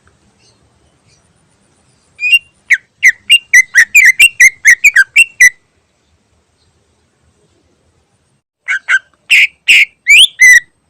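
Cucak ijo (green leafbird) calling in its loud 'ngentrok' style. It gives a run of about a dozen short, sharp, whistled notes, roughly four a second. After a pause of about three seconds it gives a shorter burst of a few more.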